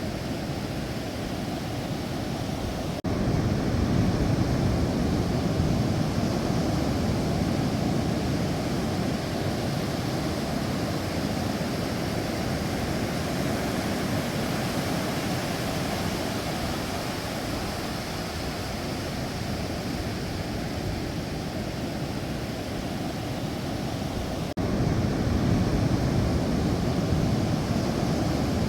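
Sea waves washing on the shore, a steady low rushing noise that turns suddenly louder about three seconds in, slowly eases, and jumps louder again near the end.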